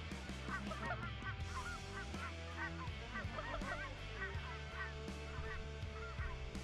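A flock of geese honking, many overlapping short calls throughout, over a steady bed of background music.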